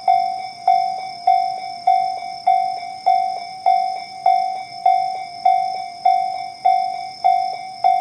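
Electronic warning sounder of a Japanese railway level crossing, Tobu's 'sound C' in its slow-tempo form, ringing a repeated bell-like ding just under two strikes a second, each strike dying away before the next.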